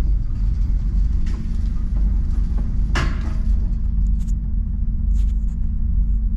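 A steady low rumble with a single sharp gunshot crack about three seconds in, ringing briefly.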